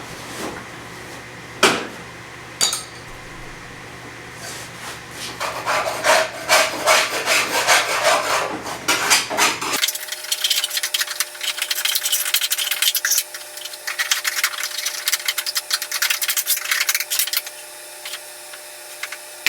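A scraper scraping caked grass clippings off the underside of a lawn mower deck: a few knocks, then rapid rasping strokes from about four seconds in that keep on until near the end.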